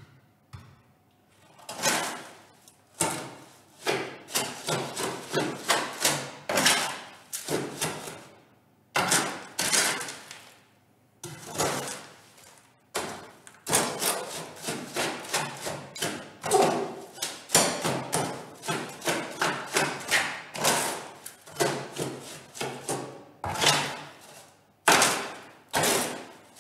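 Hand trowel scraping and turning damp granular road-base aggregate in a metal tray: irregular gritty scrapes, sometimes several a second, with short pauses between bouts. The stone is being mixed with water to bring it to its optimum moisture content.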